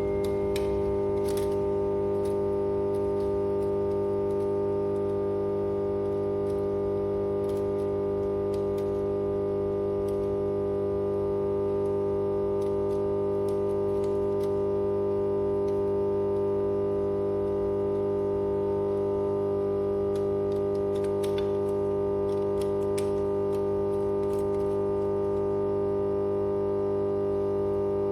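Power transformer humming: a steady drone made of several even tones that never changes, with a few faint clicks and taps over it.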